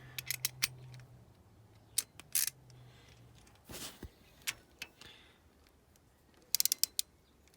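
Hand ratchet and socket clicking and clinking while tightening a lift bolt on a Toyota 2ZZ engine, with scattered single clicks and a quick run of ratchet clicks near the end.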